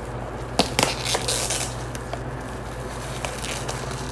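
Clear plastic shrink wrap crinkling and crackling as it is peeled off a cardboard perfume box, with a few sharp crackles about a second in and a brief rustle after.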